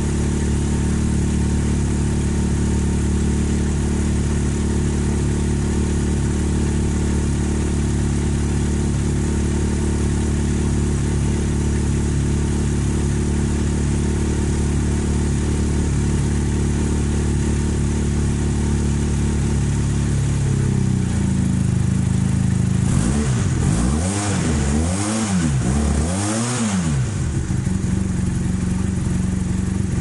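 Honda motorcycle engine running steadily, its exhaust led through a makeshift external silencer of flexible aluminium duct fitted over the muffler outlet to tame a very loud exhaust. Near the end the note wavers up and down three times.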